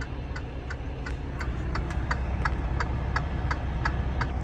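Flasher ticking rapidly and evenly, about three ticks a second, over a steady low engine idle.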